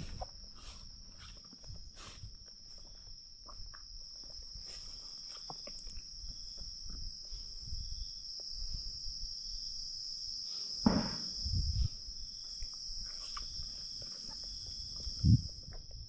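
Night insects chirring in one steady, continuous high-pitched drone, with a couple of short low thumps about eleven and fifteen seconds in.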